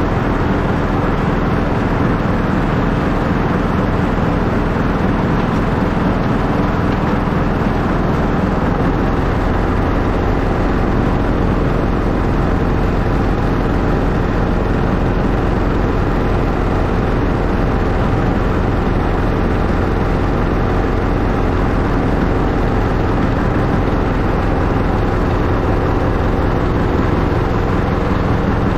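Miniature ride-on replica of a Class 91 InterCity locomotive running steadily along the track: a constant low drone with rumbling running noise, no change in speed.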